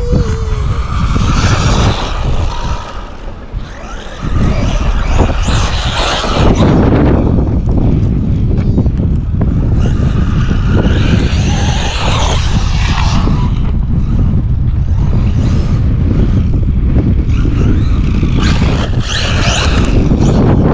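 Traxxas Maxx V2 RC monster truck being driven: its brushless motor and geartrain whine up under throttle in four bursts over a steady low rumble.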